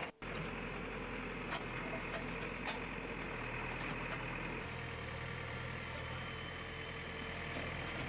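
Backhoe loader's diesel engine running steadily, with a few faint knocks. The engine note changes abruptly about halfway through.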